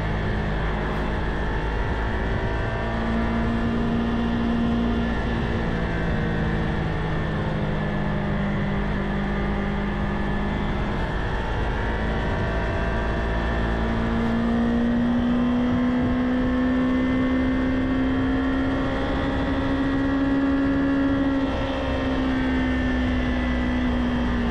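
Kawasaki Ninja 500 parallel-twin engine running under way, over wind and road rumble. Its pitch holds steady, climbs gradually in the second half and drops suddenly about three seconds before the end.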